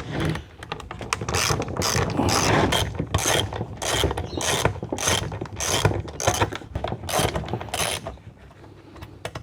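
Hand ratchet wrench clicking as it backs out fasteners holding the radiator's plastic cover, in a steady run of about two to three clicks a second that stops about eight seconds in.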